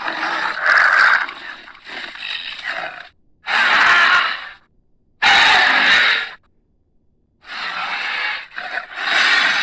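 Carnotaurus creature sound effects: a run of breathy, hissing exhalations, each about a second long, with short gaps between them and no clear pitch.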